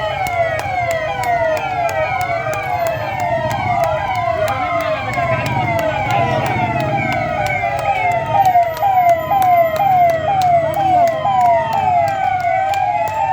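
Several police sirens sounding at once and overlapping: some in a fast, repeating rising yelp, others in slow rising and falling wails, over a low rumble.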